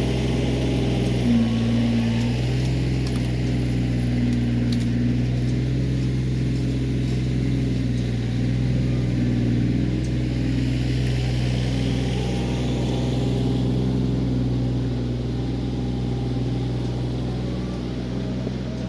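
Kioti CK20S compact tractor's three-cylinder diesel engine running steadily while the backhoe is worked, with a higher hum coming and going several times as the hydraulics take load.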